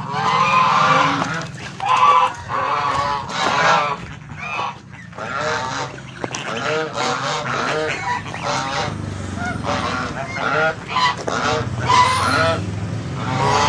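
A flock of white domestic geese honking, many short calls overlapping one after another.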